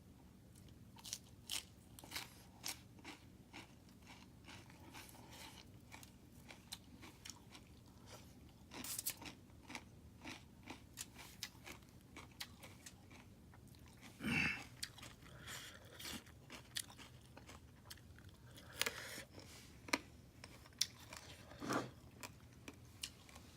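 A person biting into and chewing crunchy food: irregular sharp crunches and clicks, with a few louder crunches in the second half.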